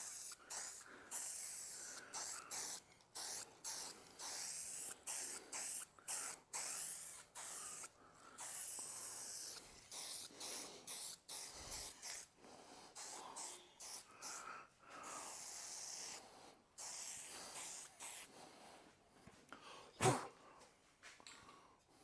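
Aerosol spray-paint can hissing in a long series of short bursts, misting a light dusting coat of enamel rather than a wet coat. A single sharp knock about 20 seconds in is the loudest sound.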